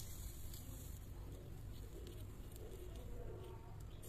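Small metal spatula scraping and tapping against a miniature brass pan as diced vegetables are pushed out into a steel bowl: faint light clicks over a steady low hum.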